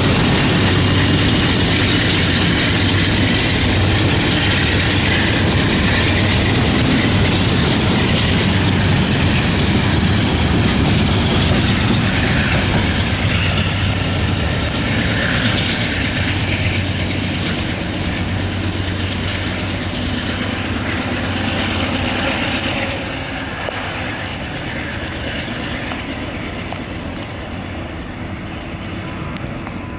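Freight train passing: the diesel locomotives' engines hum as they go by, then the wheels click over the rail joints as the cars roll away. The whole sound fades steadily, with a sudden step down about two-thirds of the way through.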